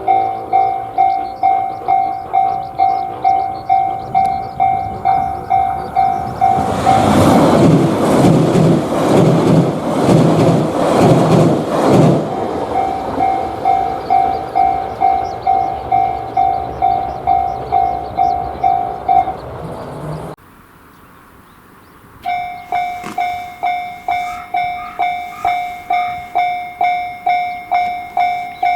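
Japanese railway level-crossing warning bell ringing its 'kan-kan' about twice a second. A train passes loudly through the crossing for about five seconds in the middle, rumbling and clattering over the rails. The bell stops after the train has gone, there is a brief quiet, and a crossing bell starts ringing again about two-thirds of the way in.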